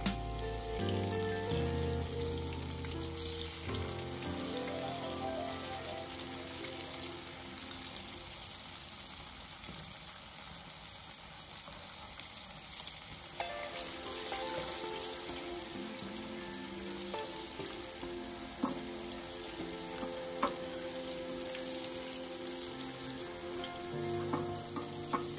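Potatoes sizzling steadily as they fry in a pan, with a couple of sharp utensil taps near the end. Soft background music plays underneath.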